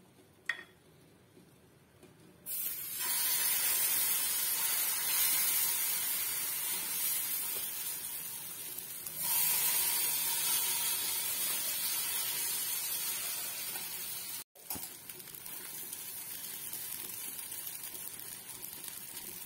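Wheat-flour and bottle gourd batter sizzling on a hot non-stick tawa. The sizzle starts suddenly a couple of seconds in as the first spoonful lands, jumps again about halfway through with the second, and fades slowly after each.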